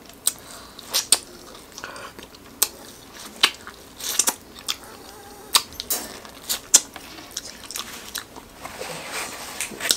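Biting and chewing corn on the cob: an irregular run of sharp, crisp crunches and mouth clicks.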